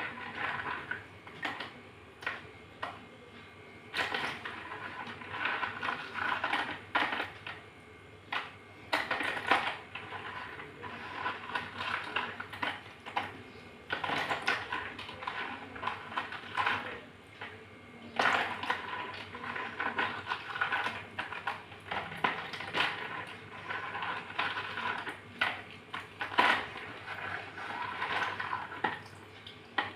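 Wet slate pencils crushed and squeezed by hand in a plastic bowl of water: irregular crunching and crackling, with many sharp clicks as the pieces break.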